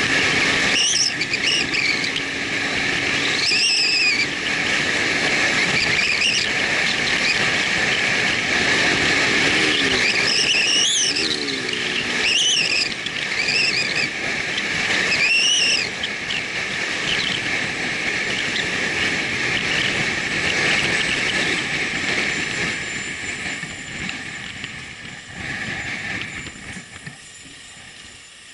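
Motorcycle on the move on an asphalt road: steady engine and wind noise with several brief high squeals that rise and fall in pitch. It grows quieter near the end as the bike slows down.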